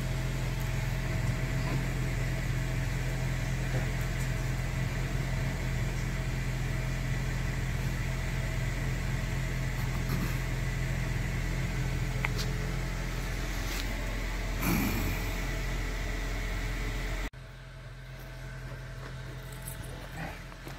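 Steady low mechanical hum from a running motor. It cuts off abruptly about seventeen seconds in, leaving a quieter hiss.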